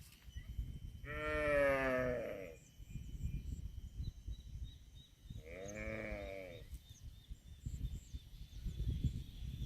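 A cow mooing twice, two drawn-out, fairly high-pitched calls of about a second and a half each, over a low rumble.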